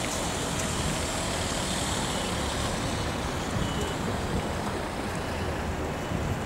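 Steady outdoor background noise: a constant rushing hiss over an uneven low rumble.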